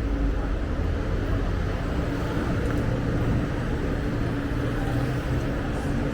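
A steady motor drone with a low rumble and a level hum, among street noise.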